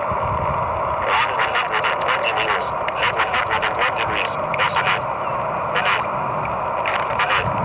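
Synthesized computer voice of the robot sailboat's autopilot reading out its navigation reports, heard crackly and muffled through a small radio receiver.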